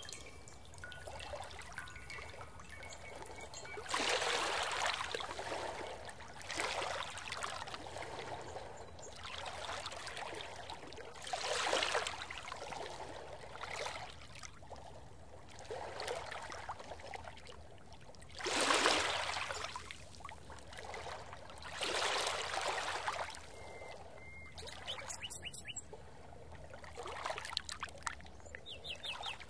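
Water trickling and rushing, rising in loud swells every few seconds over a steady hiss.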